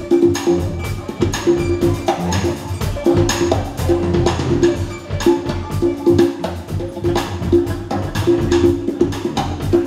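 Acoustic band playing an instrumental passage live: two acoustic guitars and an electric bass over hand percussion keeping a busy, steady rhythm of sharp, clicky strikes.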